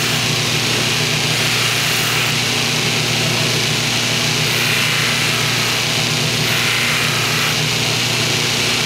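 Motor-driven wheel on a bench spindle running steadily while a small brass dagger fitting is held against it: a constant motor hum under a loud abrasive hiss.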